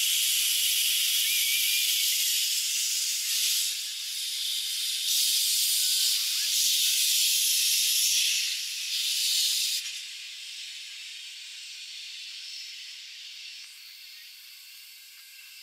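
Thomas-liveried C11 steam tank locomotive venting steam in a loud hiss that surges and eases several times, then drops to a fainter steady hiss about ten seconds in.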